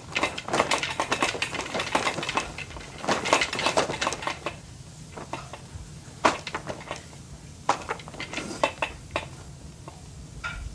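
Hard plastic toys of a baby's activity saucer clattering and rattling as the baby bangs and plays with them. The clattering is dense for the first four seconds or so, then thins to scattered clicks and knocks.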